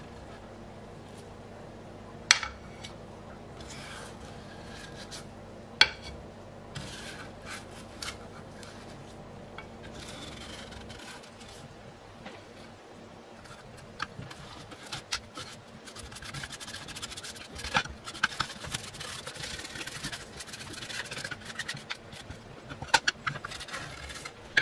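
Bristle paintbrush scraping and dabbing over a bare metal plate, pushing off paint that has softened and wrinkled under stripper, with a few sharp knocks. The scraping gets busier in the last third. A steady low hum stops about halfway through.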